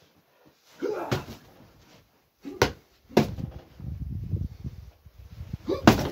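Four hard blows landing on a plastic-wrapped heavy punching bag, each a sharp thud, with rougher low scuffing and bumping between the later hits.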